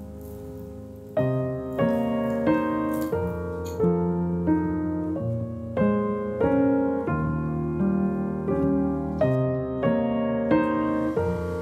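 Background piano music: a gentle melody of notes struck at an even, unhurried pace over held chords.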